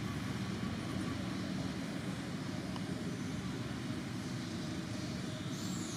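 Steady low outdoor background rumble with a faint, thin, high steady whine over it. A couple of short high chirps come near the end.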